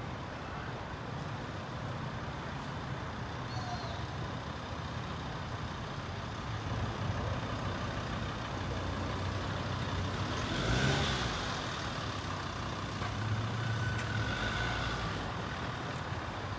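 Street traffic: vehicle engines running and passing, with a low hum that swells through the middle. A brief, louder rush of noise comes about two-thirds of the way through.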